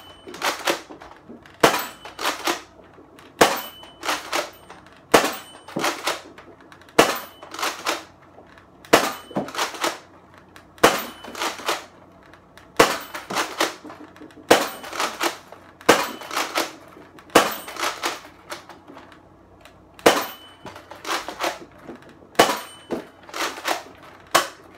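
Nerf Rival Apollo blaster firing foam rounds from its 12-round magazine, about one shot every two seconds, roughly a dozen in all. Each sharp shot is followed by a quick cluster of plastic clacks as the priming handle is pulled back and pushed forward for the next round.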